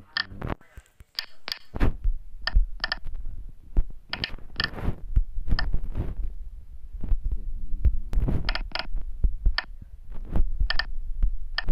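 Short electronic key beeps, many in quick pairs, from taps on a CNC simulator's on-screen keypad, over dull low thumps and rumble of handling noise.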